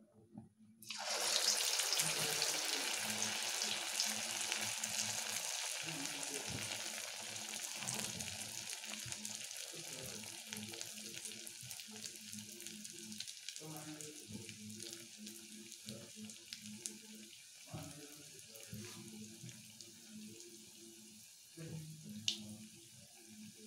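Urad dal vada batter deep-frying in hot oil: a sizzle that starts suddenly about a second in, when the batter goes into the oil, and then slowly dies down as the vada fries.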